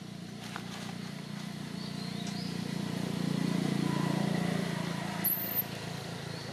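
Low engine hum of a passing vehicle, growing louder toward the middle and easing off again, with a brief high chirp near the end.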